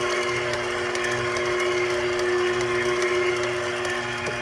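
KitchenAid stand mixer running, its beater turning through thick cake batter in a metal bowl: a steady motor hum with a low throb pulsing a little more than once a second.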